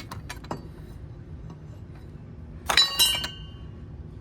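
Metal sockets and hand tools clinking together as they are sorted through: a few light clicks, then a louder clatter of metal on metal about two and a half seconds in that rings briefly.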